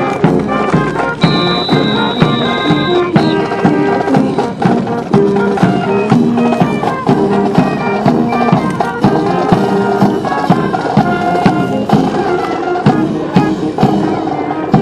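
Brass band playing a march over a steady drum beat, with a high note held from about one to three seconds in.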